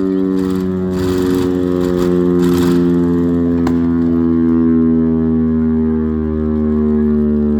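Chrysler air raid siren sounding, its low, steady tone sinking slowly in pitch as it winds down, over the running of its Hemi V8 engine. Brief rushing hisses come about one and two and a half seconds in.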